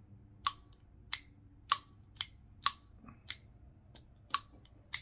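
Sharp metallic clicks, about nine in five seconds, as the bolt of a gold-coated Faxon low-mass AR-15 bolt carrier group is worked in and out of the carrier by hand.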